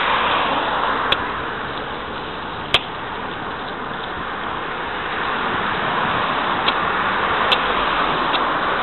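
Road traffic on a town street: the tyre and engine noise of passing cars swells and eases as they go by. A few sharp clicks sound over it, one about a second in, one near three seconds, and a few more near the end.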